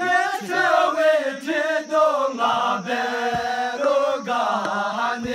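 A group of men singing a chant-like song together, several voices overlapping and rising and falling in pitch.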